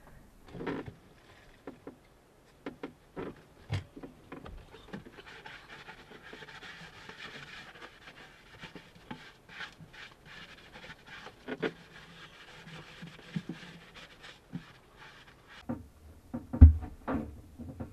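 A sponge wiping and scrubbing the inside of a fibreglass bilge compartment, with scattered knocks and bumps of hands and gear against the hull. A loud thump comes near the end.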